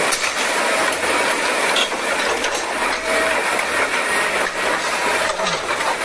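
Crawler crane's steel tracks and gearing making a steady, dense mechanical rattle.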